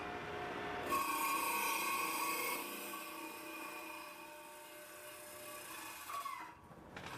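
A power tool cutting into a block of rock to take a sample, with a steady high grinding whine. It starts about a second in, fades gradually and stops shortly before the end.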